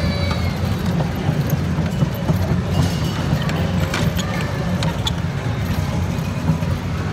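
Kiddie train ride rolling along its track: a steady low rumble from its wheels and motor, with light clicks now and then.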